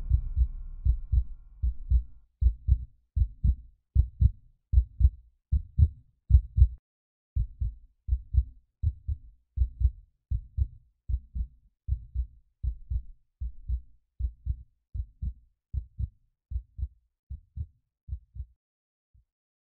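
Heartbeat sound effect: low double thumps repeating at an even pace, growing fainter and stopping near the end.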